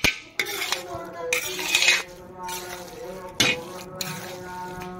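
A spatula scraping and stirring grated carrots for gajar halwa in a wok, in a few irregular strokes, the strongest about three and a half seconds in. Faint sizzling from the pan underneath.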